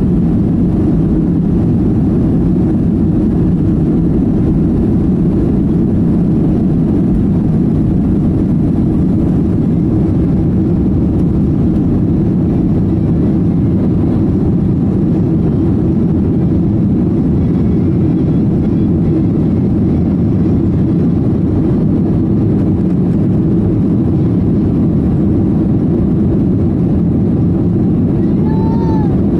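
Jet airliner engines at takeoff thrust, heard from inside the passenger cabin as the plane lifts off and climbs: a loud, steady, deep rush of noise. Near the end comes a brief higher-pitched sound that bends in pitch.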